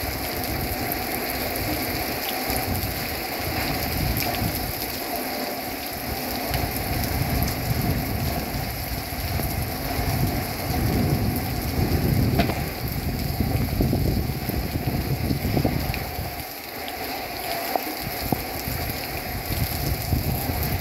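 Heavy rain pouring steadily, with a low rumble underneath that comes and goes, loudest a little past halfway.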